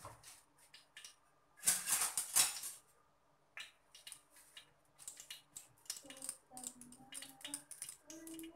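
Scattered clicks and light clatter of kitchen utensils and cookware, with a brief louder rush of noise about two seconds in.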